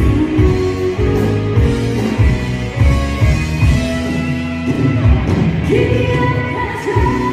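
Live rock band playing a dynamic song, with electric guitars, bass and a drum kit driving a steady beat. A woman's lead vocal comes in about five seconds in.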